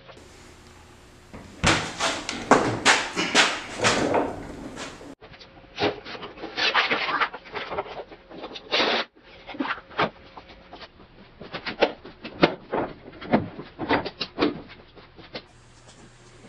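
Cordless impact driver driving screws into a plywood top: several short runs of rapid hammering clatter, with brief pauses between screws.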